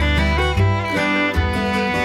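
Background music with fiddle-like bowed strings over guitar and a steady bass line.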